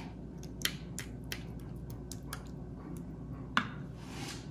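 A metal spoon scooping marinara sauce from a glass bowl and spreading it onto breaded chicken cutlets: a handful of faint clicks and taps, with a soft scrape near the end.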